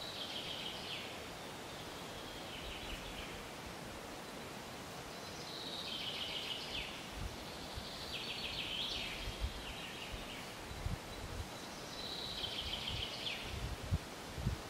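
A songbird singing about five short trilled phrases, a few seconds apart, over a steady outdoor hiss.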